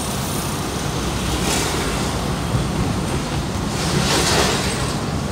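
Steady road noise inside a moving sedan: a low engine and tyre rumble under a broad rushing hiss of tyres and wind, swelling briefly twice, about a second and a half in and again around four seconds in.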